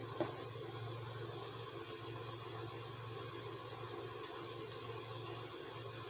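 Chopped onions frying in oil in a kadai on a gas burner: a steady, quiet sizzle with a few faint crackles, and a light knock of the wooden spatula just after the start.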